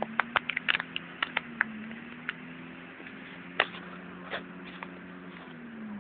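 Off-road vehicle engine running steadily up the slope, a low hum that wavers slightly in pitch. A quick run of sharp clicks and snaps in the first two seconds and a few more later are the loudest sounds.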